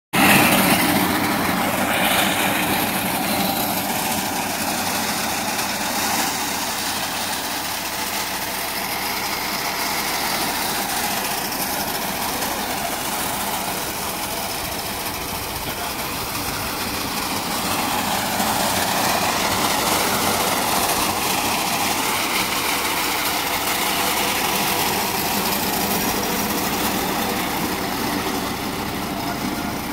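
John Deere tractor's diesel engine running steadily under load while driving a mounted reaper that is cutting standing crop.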